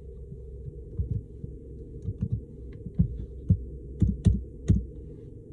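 Typing on a keyboard: irregular soft taps and low thumps, a dozen or so at uneven spacing and thicker and louder in the second half, over a steady low hum.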